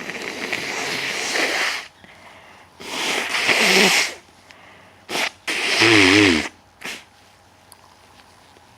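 A person sneezing powerfully and wetly: a long breathy rush, then loud sneezes about three and six seconds in, each with a voiced cry (the second one wavering), and short sharp bursts between them.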